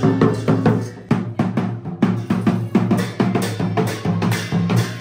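Dhol, a double-headed barrel drum, beaten with a stick and the bare hand in a brisk, steady Sakela dance rhythm: deep booming strokes mixed with sharp slaps, several a second.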